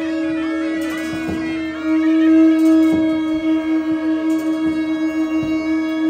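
Tibetan conch shell trumpet (dungkar) blown in one long steady note that swells about two seconds in and wavers in a quick pulse during the second half, with a higher stepping wind melody above it in the first half.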